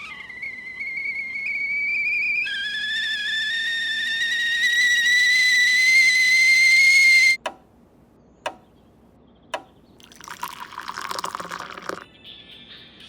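A high whistle rising slowly in pitch, joined about two seconds in by a second, lower and louder whistle, then cut off suddenly. Three sharp clicks follow about a second apart, then about two seconds of rushing noise.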